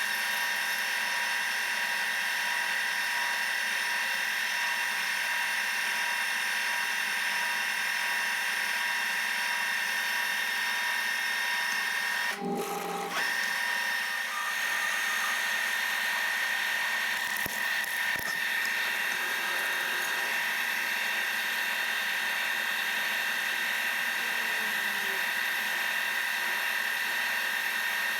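Milling machine spindle running with a steady high whine while drilling the bolt holes in a steel chuck hub, tapping-size holes for M10 x 1.5 threads. The sound dips briefly about twelve seconds in, then carries on.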